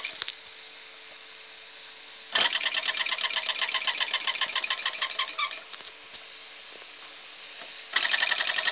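Mamod model steam traction engine's oscillating cylinder running in rapid, even chuffs that stop and start: a moment at the start, about three seconds' run from two and a half seconds in, and again near the end, with a faint steady hiss in the pauses. The faltering running is what the owner puts down to worn safety valve seals leaving too little steam.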